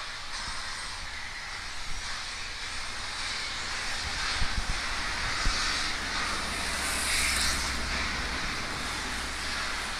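Distant BR Standard 9F two-cylinder steam locomotive working hard as it pulls away, its exhaust coming as a hissing roar with heavy beats about once a second. The sound grows louder about halfway through.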